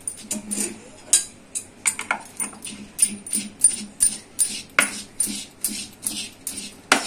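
Metal pestle pounding freshly set tagar (crystallised sugar) in a kadhai, about three crunching knocks a second, breaking the sugar crust into grains.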